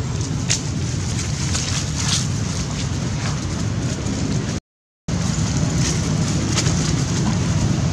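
Wind buffeting the microphone as a steady rumble, with faint crackles of dry leaves under the monkeys' feet. The sound drops out completely for about half a second just past the middle.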